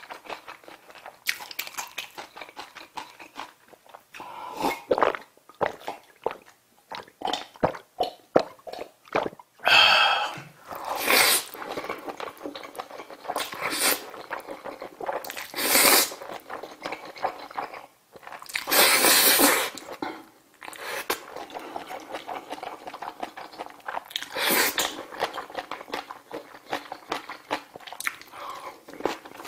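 Close-miked eating sounds: wet chewing and mouth clicks from instant black bean noodles (jjajang ramyeon), broken by several loud slurps of about a second each. A bite of kimchi comes near the end.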